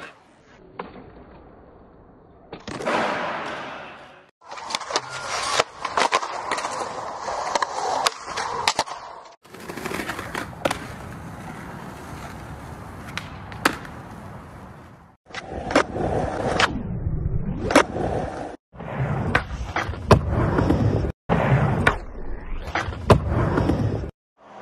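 Skateboards rolling on concrete, with sharp clacks of boards popping and landing tricks, in several short clips cut one after another.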